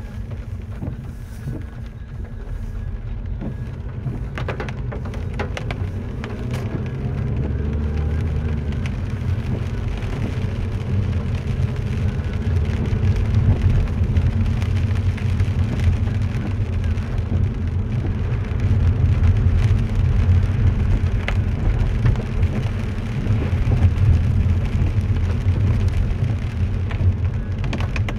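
Cabin noise of a car driving on a wet road in the rain: a steady low rumble of engine and tyres with the hiss of rain and spray. It grows louder from about seven seconds in as the car picks up speed, and a few light ticks come between about four and seven seconds.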